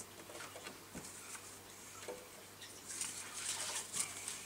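Light clicks and taps of small plastic bottle caps being handled and set down on the metal coil of an electric hotplate by gloved hands, with soft rustling about three seconds in.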